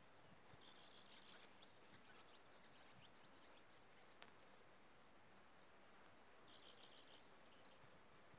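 Near silence: a faint outdoor hush with two short spells of distant small-bird chirping, near the start and again near the end, and a single faint click about four seconds in.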